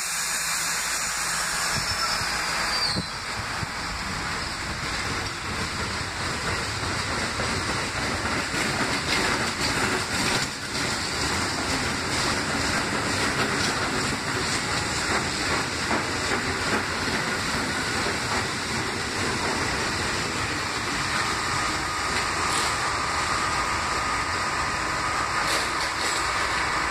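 R68 subway train running along the track: a steady rumble and hiss of steel wheels on rail. In the first few seconds a high squeal falls in pitch, and a faint steady whine comes in for the last several seconds.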